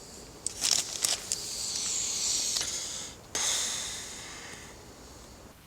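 Sleeping gear rustling as someone settles down to sleep: a few short crackly rustles, then two long hissing swells, the second starting suddenly and fading out.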